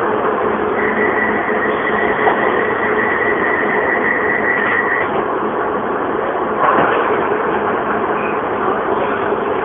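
London Underground Piccadilly line train running, heard from inside the carriage: a steady loud noise of wheels and running gear. A high steady whine sounds from about a second in until about halfway through, and a single knock comes about two-thirds of the way in.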